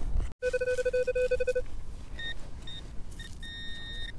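Metal-detecting electronics: a low, fast-pulsing tone for about a second, then higher beeps from a handheld pinpointer. There are three short beeps and then a longer steady tone as the pinpointer closes in on a small buried target.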